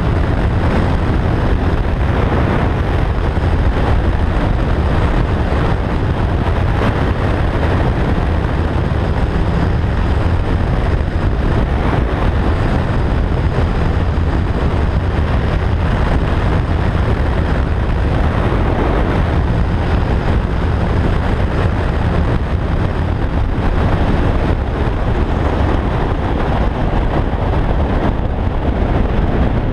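Motorcycle riding at steady road speed: the engine running under a constant rush of wind on the microphone, deep and unbroken throughout.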